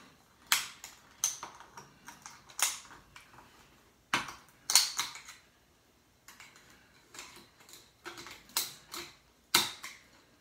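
Irregular sharp clicks and snaps of a small metal tool prying and picking at a Kindle e-reader's circuit board, working at the metal shield and heat-sink cover over its chips. The loudest snaps come a little under five seconds in and near the end.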